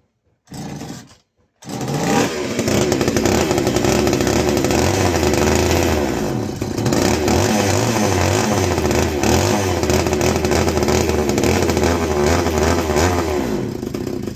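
Castor 330 Antivib two-stroke chainsaw engine running after a short burst, its speed rising and falling, with a dip around the middle. It cuts off just before the end. It sounds like a strong runner.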